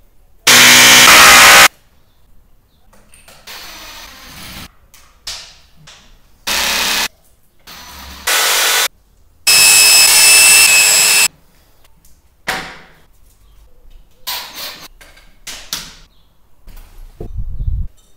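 Corded electric drill drilling overhead into the ceiling in four runs: a loud one about half a second in lasting just over a second, two short quieter ones around the middle, and a longer loud run of nearly two seconds. Small knocks and handling clatter come in between.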